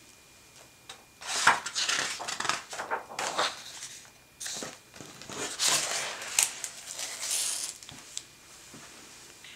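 Pages of a hardcover picture book turned and the book closed: two stretches of paper rustling and rubbing, starting about a second in and again around four and a half seconds in, with a few light clicks.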